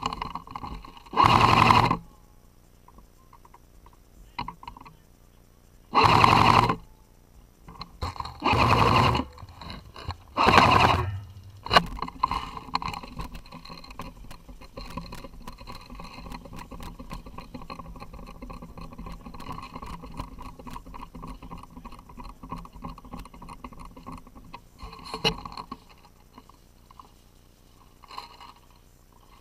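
Airsoft rifle firing four short full-auto bursts, at about one, six, nine and ten and a half seconds in, each under a second long with a fast rattle. A quieter stretch of crackling and rustling follows for about a dozen seconds.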